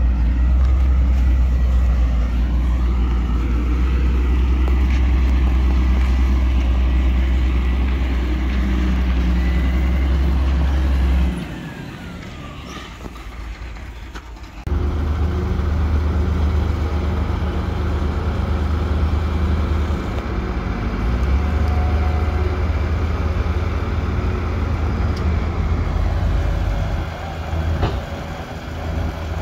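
Heavy diesel engines of earthmoving machinery running steadily at a low pitch. The sound drops away about eleven seconds in and picks up again some three seconds later.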